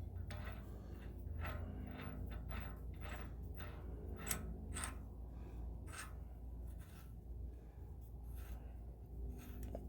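Irregular light clicks and scrapes of hand work on a front axle hub, as the washer, hub nut and sockets are handled, over a steady low hum.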